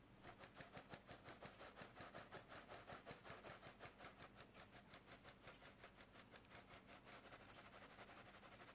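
Faint rhythmic scraping of a kitchen utensil, about five quick strokes a second, easing slightly toward the end.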